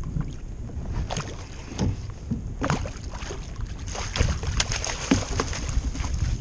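Water splashing and knocking beside a kayak as a tautog is netted alongside: a run of irregular sharp splashes, the loudest about two thirds of the way in, over wind rumbling on the microphone.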